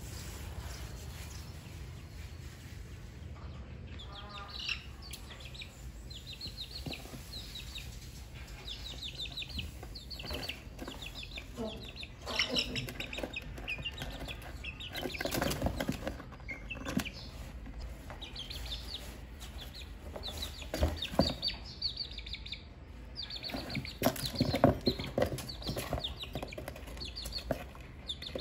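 Chickens clucking and peeping in runs of short, high calls, with occasional knocks and rustles of leafy vegetables being handled in a cardboard box.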